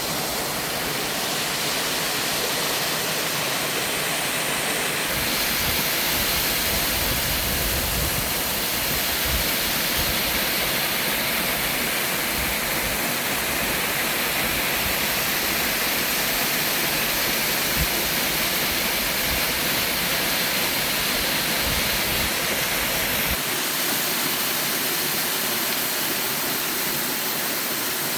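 Mountain waterfall pouring steadily: a constant, full rush of falling water. Its low rumble comes up about five seconds in and falls away again near the end.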